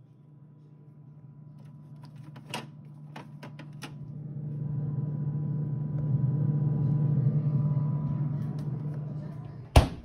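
Liebherr frost-free refrigerator humming steadily in the open freezer compartment, growing louder toward the middle, with a few light clicks early on. Near the end the freezer door shuts with a loud thump and the hum cuts off.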